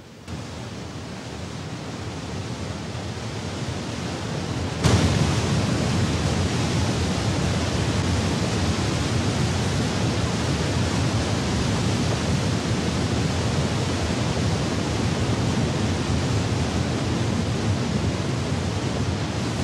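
Whitewater rushing through a narrow rocky gorge. A steady noise of churning water swells gradually, jumps suddenly louder about five seconds in, and then holds steady.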